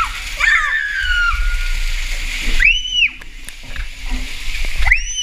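Water rushing and sloshing through an enclosed water-slide tube as a rider slides down it, with two high-pitched rising-and-falling squeals partway through and near the end.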